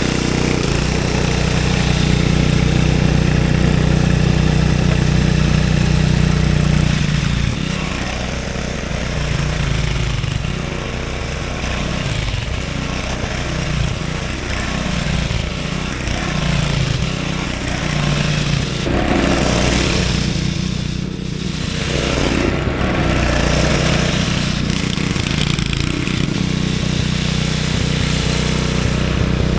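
Craftsman 5/24 snowblower's small engine running steadily while clearing snow, its note and level shifting a few times as the load changes.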